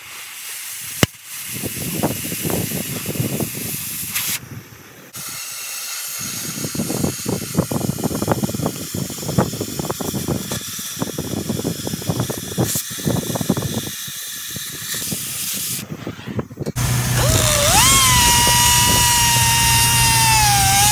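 Oxy-acetylene cutting torch cutting through a steel go-kart frame: a sharp click about a second in, then a steady crackling hiss with brief breaks. Near the end an electric power tool starts with a rising whine and runs on loudly at a steady pitch.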